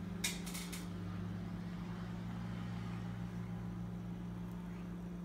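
A steady low electrical hum from an appliance in the room, with a brief clink of a metal fork being set down about half a second in.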